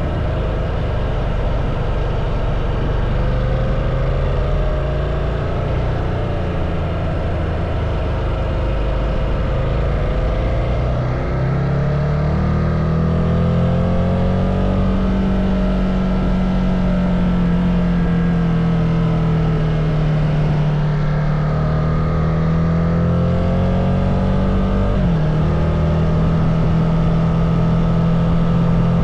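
Ducati Multistrada motorcycle engine running steadily. Its pitch climbs about twelve seconds in and holds, then dips sharply once near the end before settling again.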